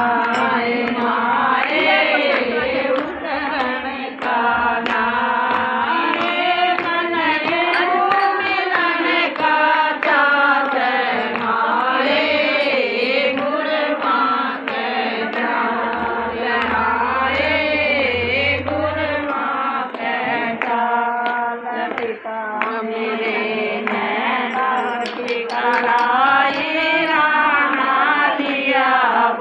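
A group of women singing a Hindi devotional guru bhajan together, keeping time with handclaps.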